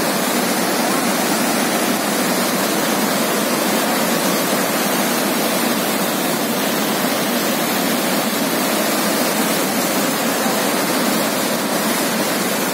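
Floodwater pouring through a dam's open spillway gates and churning in the channel below, a steady, unbroken rush of water; the gates are releasing a reservoir filled to the brim by days of continuous rain.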